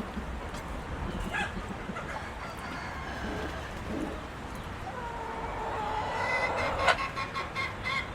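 Chickens clucking, with a rooster crowing once in a long call from about five seconds in, followed by a run of short clucks.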